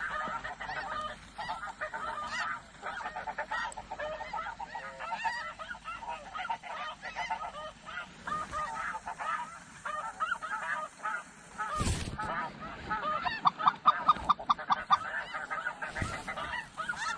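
A chorus of snow geese calling, many high honks overlapping without a break and busiest near the end. Two dull knocks come through, about twelve and sixteen seconds in.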